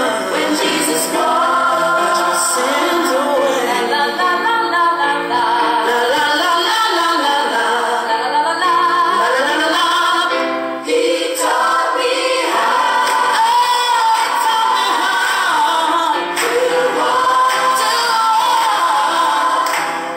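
A group of voices singing a song together, with a brief break about halfway through.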